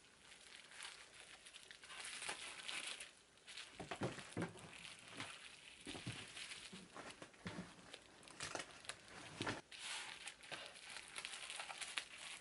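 Bubble wrap crinkling and rustling as it is folded and pressed by hand around a glass-fronted picture frame, with irregular sharper crackles.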